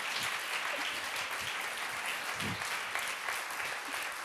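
Audience applauding: the dense, steady clatter of many people clapping.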